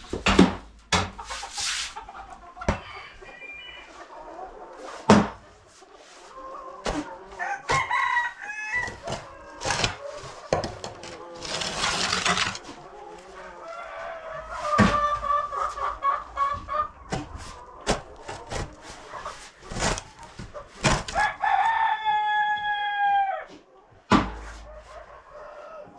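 Chickens clucking, with a rooster crowing once near the end in a long call that drops in pitch as it finishes. Scattered knocks, clicks and a brief rustle come from things being handled.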